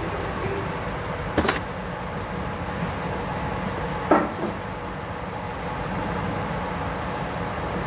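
Toyota Land Cruiser 200's V6 engine idling steadily, heard from underneath the lifted car, with two sharp knocks of metal on metal, one about a second and a half in and a louder one about four seconds in.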